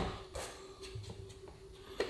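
Light clicks and taps of a bus window's trim being handled and pressed into place against the metal window frame: a sharp click at the start and a softer one about half a second in, then faint taps, over a faint steady hum.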